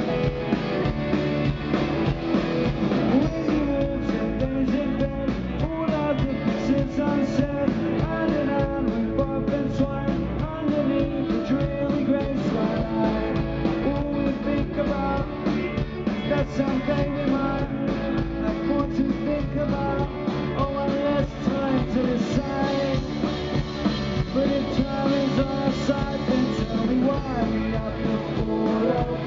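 Live rock band playing through a PA: electric guitars, bass guitar and a drum kit driving a steady up-tempo song.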